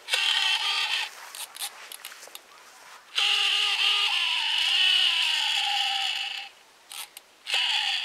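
A toddler's high voice holding long wordless sounds: briefly at the start, then one steady note lasting about three seconds from about three seconds in. Between them come short crinkly rustles, like a plastic packet being handled.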